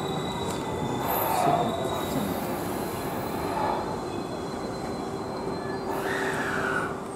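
JR West suburban electric train moving slowly along the station platform, rumbling with a steady hum. Its wheels squeal briefly about a second in, again midway, and for longer near the end.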